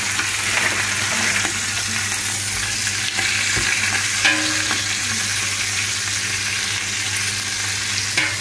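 Chunks of stewing beef sizzling steadily as they sear in hot butter in a cooking pot, browning for a bœuf bourguignon.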